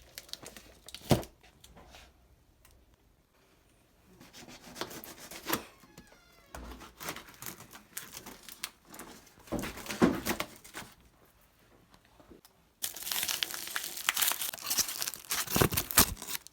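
Rustling and crinkling of packaging being handled, with a few sharp clicks and knocks. It is loudest about a second in and about ten seconds in, and turns to dense, continuous rustling in the last few seconds.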